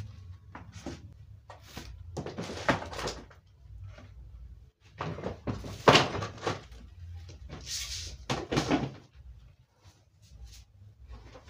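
Irregular knocks, clatter and rustling of household things being handled and moved about during kitchen organising, with the sharpest knock about six seconds in.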